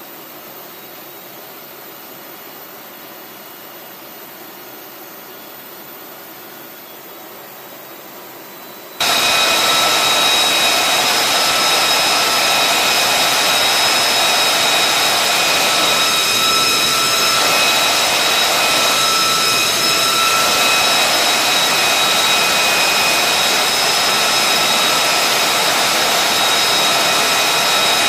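F-35B Lightning II's F135 jet engine running steadily on the ground, an even rushing noise with a steady high whine. For about the first nine seconds it is a quieter steady hum, then it jumps abruptly to full loudness.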